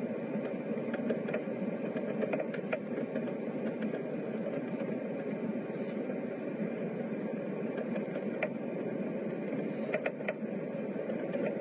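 Steady rumble of a jet airliner's engines and rushing air heard from inside the cabin on final approach, with faint scattered clicks.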